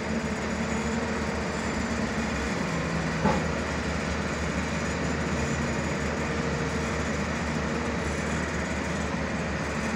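Hyundai 215L SMART Plus crawler excavator's diesel engine running steadily under working load, with a single short knock about three seconds in.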